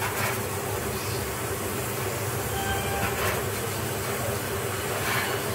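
Steady sizzle of pork fatback frying in a pan over a gas flame, with a few soft strokes of a chef's knife slicing raw pork on a wooden board, about three seconds in and near the end.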